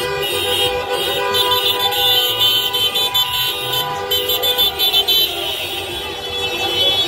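Many car horns honking at once in a slow-moving motorcade, several held tones overlapping, over the rumble of traffic.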